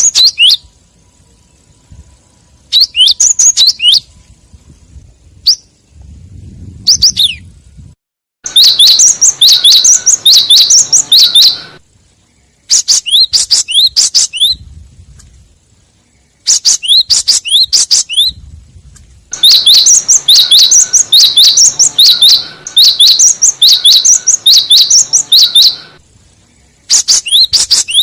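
Gelatik wingko (cinereous tit) calling: loud runs of rapid, sharp, high-pitched repeated notes, each run lasting a few seconds with short pauses between. It is a lure call used to draw in and provoke other gelatik.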